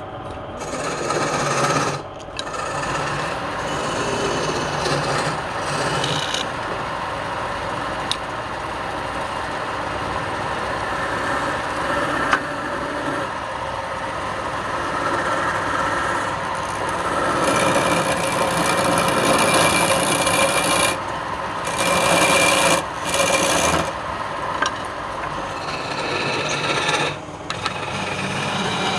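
Wood turning on a lathe with a tool held against it, giving a continuous scraping rasp that breaks off briefly a few times as the tool lifts from the wood.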